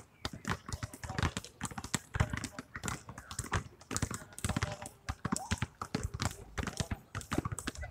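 Several basketballs being dribbled at once on an asphalt court, a quick, irregular patter of overlapping bounces.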